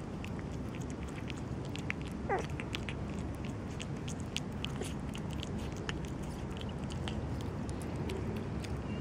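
A kitten chewing and smacking wet cat food, a steady run of small wet clicks, over a low steady background noise. About two seconds in it gives one short mew that drops quickly in pitch.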